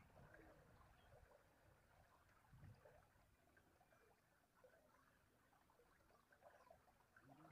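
Near silence: faint outdoor ambience with scattered small chirps and a short low rumble a little under three seconds in.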